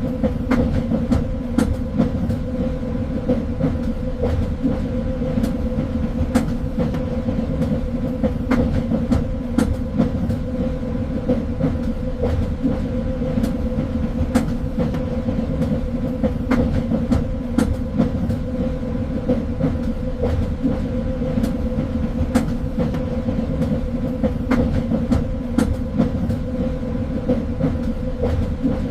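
Train running along the track: a steady low rumble with a constant hum, and irregular clicks and knocks from the wheels on the rails.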